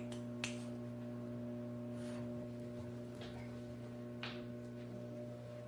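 A steady low electrical hum, with four short sniffs spread over a few seconds from a French bulldog nosing at a plush Christmas stocking.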